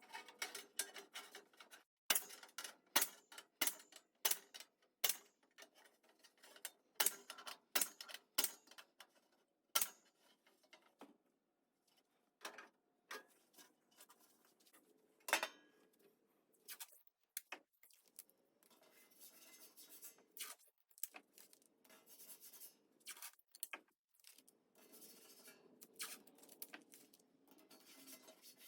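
Irregular sharp metallic clicks and clanks of hand tools and steel body parts being handled and worked, thickest in the first ten seconds or so, with quieter scraping and rubbing later on.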